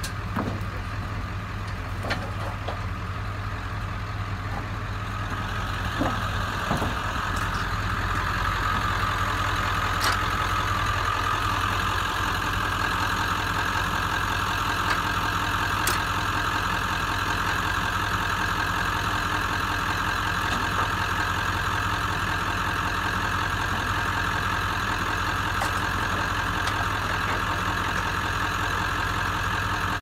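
A pickup truck's engine idling steadily, growing a little louder about eight seconds in, with a few sharp knocks in the first half.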